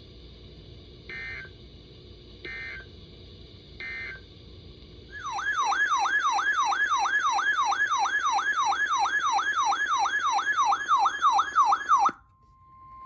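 Three short bursts of EAS data tones, the end-of-message signal, over a low hum. Then a loud electronic warbling siren alarm, about three falling sweeps a second, which cuts off suddenly after about seven seconds. Near the end a steady single alarm tone begins, the NOAA Weather Radio 1050 Hz warning tone announcing the next alert.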